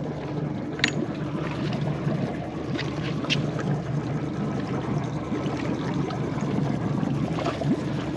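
Steady low rumble and wash of a small fishing boat at rest on the water, its motor running at idle and water against the hull, with a few light clicks.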